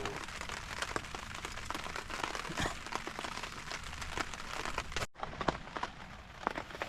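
Rain falling steadily, with many separate drops ticking sharply on a surface. The sound drops out briefly about five seconds in, then the rain carries on.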